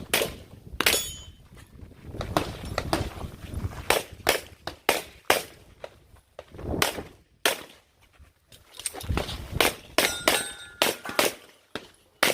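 Pistol shots fired during an IDPA stage run, mostly in quick pairs a fraction of a second apart, with footsteps and movement between strings as the shooter moves between positions.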